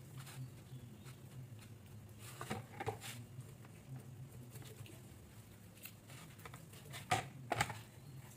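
Hands rubbing and handling a whole raw chicken in a plastic basin: scattered soft wet handling noises, with two sharper ones in quick succession near the end.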